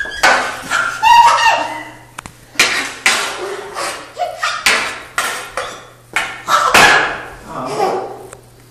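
Repeated knocks and clatters of a toy hockey stick on a bare concrete floor, each dying away quickly, mixed with a toddler's short squeals and babble.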